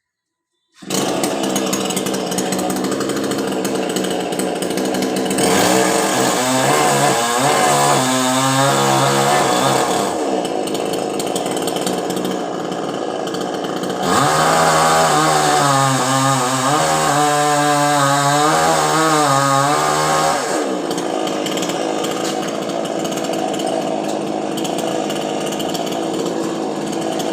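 Chainsaw engine running, starting abruptly about a second in. Twice, for several seconds each time, it gets louder and its pitch wavers up and down as it works through coconut tree wood.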